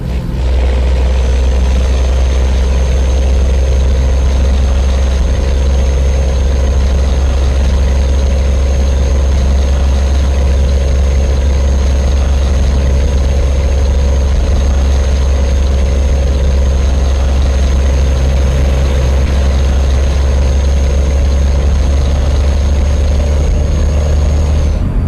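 Scania truck's diesel engine running steadily under load with a deep, even drone and a faint high whine; the pitch holds level throughout, with no revving or gear changes.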